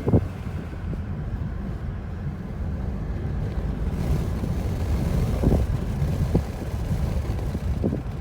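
Steady low rumble of a car driving, heard from inside the cabin, with some wind noise.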